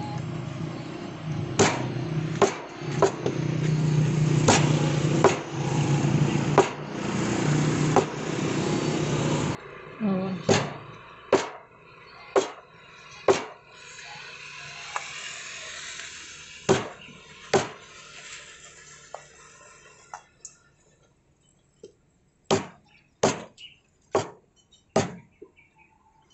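Cleaver chopping goat meat and bone on a wooden tree-trunk chopping block: a series of sharp knocks in short runs, about a second apart. A loud steady drone runs under the first ten seconds of chops and cuts off suddenly.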